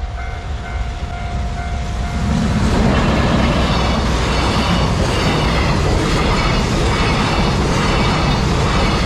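A Japanese level-crossing warning bell dings in a quick repeating pattern. About two seconds in, a container freight train hauled by a JR Freight EF210 electric locomotive arrives and runs past loudly, its wheels clattering over the rails and drowning out the bell.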